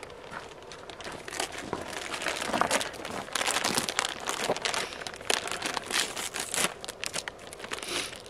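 Foil freeze-dried meal pouch crinkling in the hands as it is handled and opened close to the microphone: a run of irregular crackles that grows louder about a second in.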